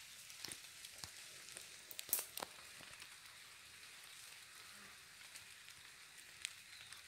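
Footsteps crunching on dry leaf litter and twigs, a few sharp crackles in the first few seconds, the loudest about two seconds in, and one more near the end, over a faint steady high hiss.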